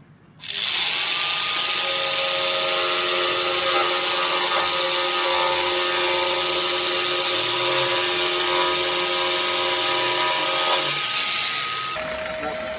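Pumpkin J-J1110 jigsaw sawing through a 20 mm pine board, with a dust extractor drawing through a hose on the saw. The run builds up over about half a second as the saw soft-starts, holds steady with a whine, and stops near the end, leaving a fading hum.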